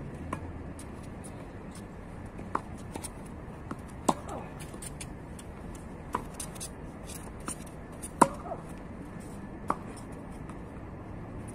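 Tennis balls struck by rackets in a rally: sharp pops about every two seconds, the loudest about eight seconds in, with a few fainter ticks between.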